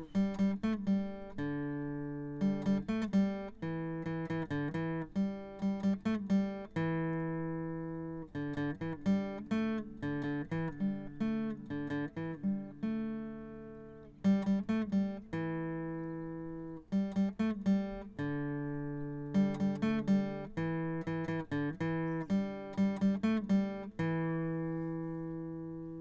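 Solo acoustic guitar music: a tune of plucked notes that ring and fade, with a held note or chord left to die away every few seconds.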